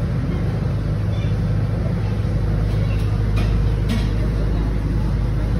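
Steady low machine hum, with faint background voices and a few light clicks about three and four seconds in.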